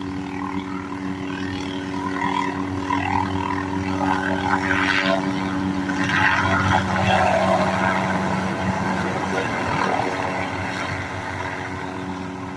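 Helicopter running: a steady mechanical drone of several held tones over a rushing noise. It grows louder toward the middle and eases off near the end.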